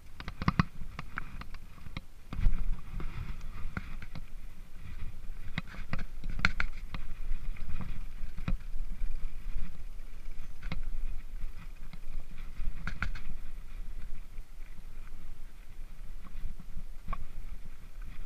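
Mountain bike riding over a gravel and grass track: a steady low rumble of tyres and wind on the camera's microphone, broken by scattered sharp knocks and rattles as the bike goes over bumps.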